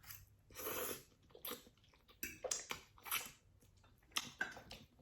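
Chewing a mouthful of instant black bean noodles: a quiet run of short, irregular mouth noises and bites.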